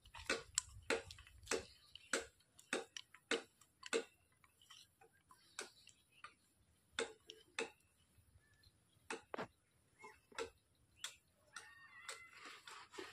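Hands working fishing bait in a steel bowl: irregular sharp clicks and taps of fingers against the metal, about two a second for the first few seconds, then sparser.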